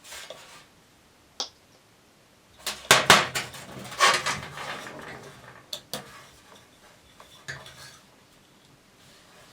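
Hard objects being handled and set down, clinking and clattering: a cluster of sharp knocks about three to five seconds in, with single clicks before and after.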